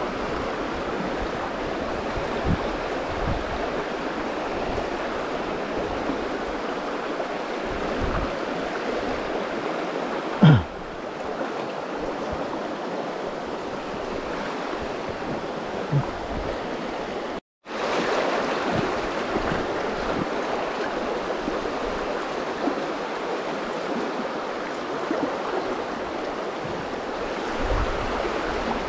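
Steady rush of flowing river water, with one brief knock about a third of the way in. The sound drops out for an instant a little past the middle.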